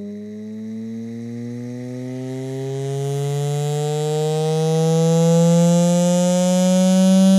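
Dell M18x laptop's speakers sounding a steady tone that slowly rises in pitch and grows louder, with a rough, buzzy edge; the right side of the laptop is vibrating, a fault that appeared after the motherboard was replaced.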